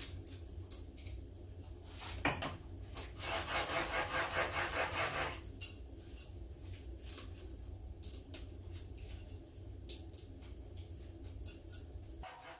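Quick rhythmic rubbing with a cloth, about three or four strokes a second for a couple of seconds, as a freshly honed plane iron and the sharpening plate are wiped clean. Light metal clicks come from the steel honing guide being handled.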